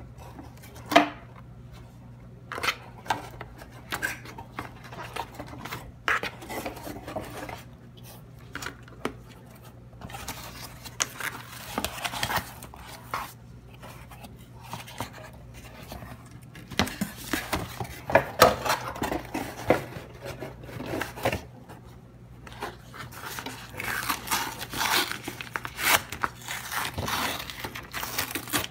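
Hands handling a corrugated cardboard shipping box: irregular scraping, rustling and knocks as the flaps are opened and pressed flat. Plastic wrapping crinkles near the end.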